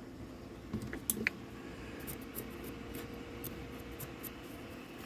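A few light clicks and taps of small parts being handled on an old radio, about a second in, with fainter ticks after, over a steady low hum.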